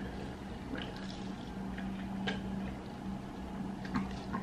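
Faint swallowing of a person drinking from a paper cup, a few soft gulps over a steady low hum.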